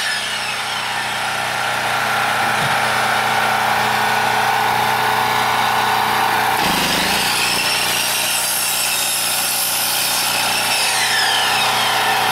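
Electric chop saw running and cutting small branches into firewood lengths, a steady motor whine with the rasp of the blade in wood. Near the end the whine falls as the blade spins down.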